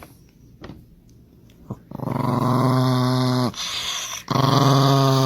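A dog growling in two long, steady growls, the first about two seconds in and the second near the end, with a short pause between them.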